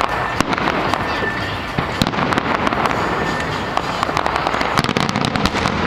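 Fireworks going off: a dense, continuous run of rapid sharp crackles and pops over a noisy din, thickest about two seconds in and again near the end.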